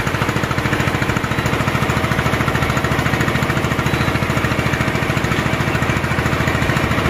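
Engine on a small fishing boat running steadily, with a fast, even pulse.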